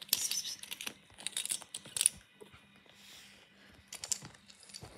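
Bursts of close rustling and crinkling from a kitten scrabbling and pouncing on a fabric blanket while playing with a small toy car.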